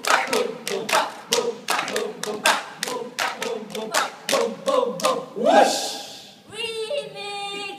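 A group chanting a cheer in unison while clapping in a steady rhythm. About five and a half seconds in the voices rise into a shout, then hold one long, wavering sung note.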